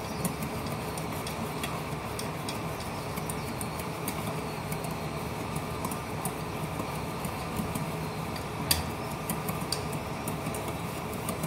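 Besan batter being beaten by hand in a stainless steel bowl: irregular light ticks of the utensil against the steel, with one sharper knock near the end, over a steady background hum.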